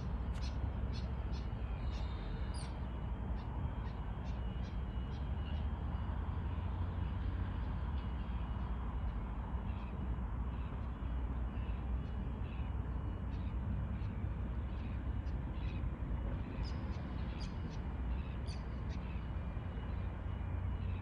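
Birds calling in short, sharp, repeated notes, busiest near the start and again near the end, over a steady low rumble.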